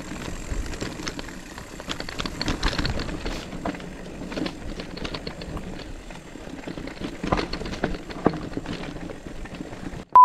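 Mountain bike riding down a rough trail: tyres on dirt and stones, with the bike rattling and clicking over the bumps. A loud steady beep cuts in at the very end.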